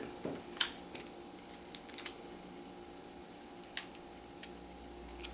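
Scattered small clicks and a couple of brief high squeaks from a small screwdriver and screw being worked into the back of an HP laptop to hold its keyboard in place.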